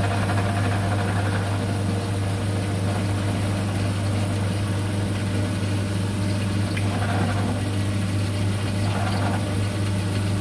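Milling machine running with a steady, strong low hum while a counterbore cuts a recess into a drilled hole in a metal block, so a cap-screw head can sit flush. Faint cutting noise comes and goes in the second half.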